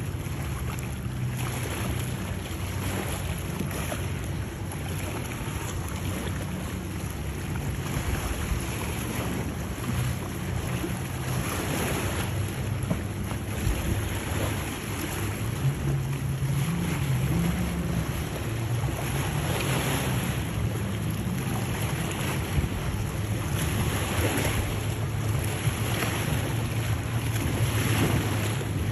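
Steady low drone of motorboat outboard engines running on the inlet, with wind buffeting the microphone and choppy water washing. The engine pitch rises a little about halfway through.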